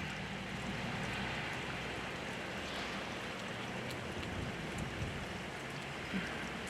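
Steady rain falling in the wind: an even hiss with a few faint ticks.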